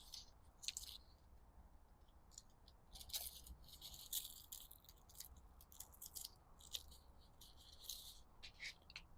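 Faint, scattered crackling and rustling in short bursts, thickest a few seconds in: the handling noise of parts being worked on.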